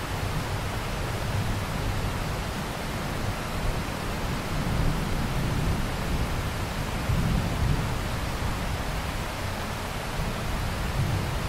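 Steady rain: an even hiss of many drops, with a low rumble underneath that swells and eases.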